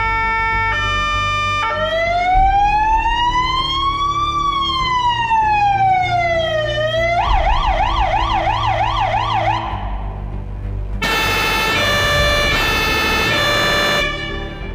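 Siren of an Iveco EuroCargo fire truck with a Magirus aerial ladder stepping through its tones: a few short steady tones, then a slow wail rising and falling over about five seconds, then a fast yelp. About a second after the yelp stops, a loud horn sounds for about three seconds, over the diesel engine idling.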